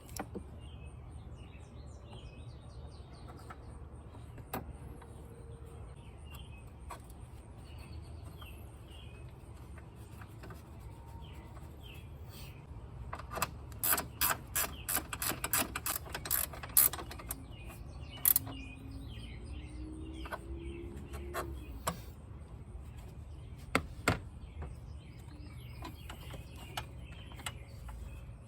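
Hand tool clicking on metal in a quick run of about a dozen strokes midway, likely a ratchet wrench tightening the battery hold-down bracket, with a few single clicks and knocks after. Birds chirp faintly throughout.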